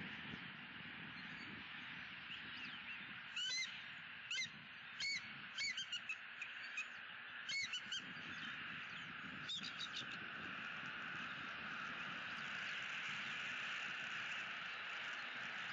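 A bird calling: a series of short, high, ringing calls, some in quick clusters of two or three, from a few seconds in until about ten seconds in, over a steady background hiss.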